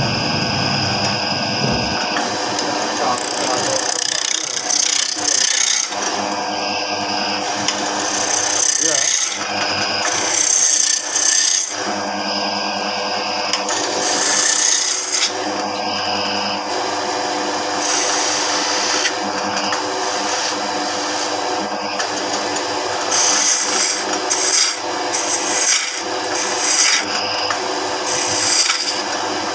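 Wood being turned on a lathe: a hand-held turning chisel cuts and scrapes a spinning wooden blank for a spinning top, a steady shaving noise that swells and eases as the tool bites, over the lathe's running hum.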